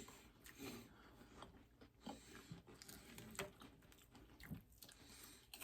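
Faint chewing of crisp food, with a scattering of soft crunches and clicks.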